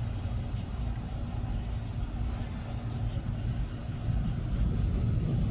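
Thunder rumbling low and continuously, growing louder over the last second or so.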